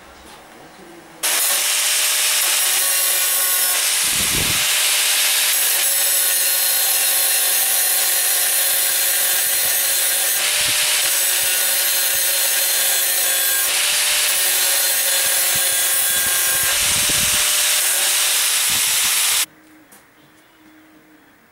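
Angle grinder with an abrasive disc grinding plug welds flush on sheet steel. It starts about a second in and runs steadily, a hiss of grinding over a steady motor whine, then stops suddenly near the end.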